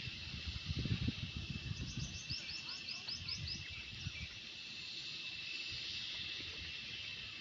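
Rural outdoor ambience: a steady high-pitched insect drone, with a bird giving a quick run of about ten short chirps about two seconds in. Low rustling and crackling fills the first few seconds.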